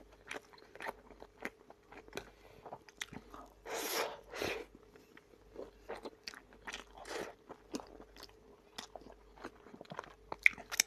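Close-up, fairly quiet eating sounds: a person crunching and chewing a crisp piece of bread topped with white sauce, with many short sharp mouth clicks and smacks, finger-licking, and one longer, louder burst about four seconds in.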